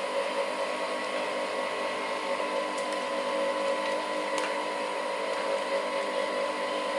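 Industrial sewing machine running with a steady, even hum while stitching gathered cotton fabric, with a few faint clicks.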